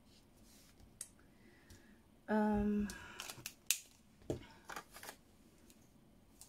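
A woman's short hummed note, then a run of sharp clicks and taps as Stampin' Blends alcohol-marker caps are pulled off and snapped back on and the markers are put down on the table.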